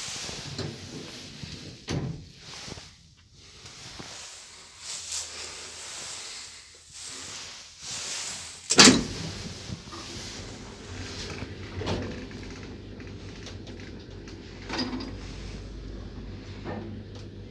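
An elevator door banging shut about nine seconds in, after a stretch of handling clicks and rustle. The traction elevator then runs with a steady low hum, with a few light clicks.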